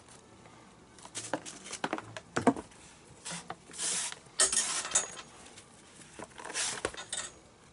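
Blue leather lace being pulled through the lace holes at the fingertips of a leather baseball glove: scratchy, rasping swishes of lace drawn against leather, with small clicks and rustles from handling the glove and the lacing needle. The longest pulls come around four to five seconds in and again near seven seconds.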